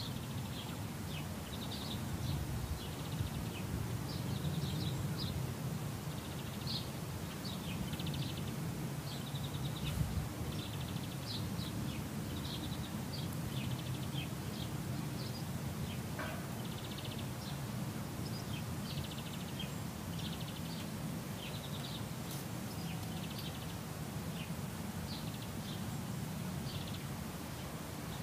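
Garden ambience: small birds chirping and trilling again and again, over a steady low background rumble.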